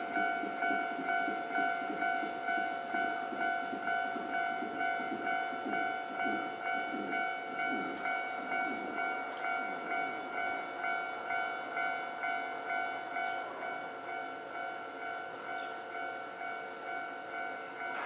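Japanese railway level-crossing alarm ringing, its electronic bell tone pulsing about one and a half times a second. A lower rumble sounds beneath it and fades out about halfway through.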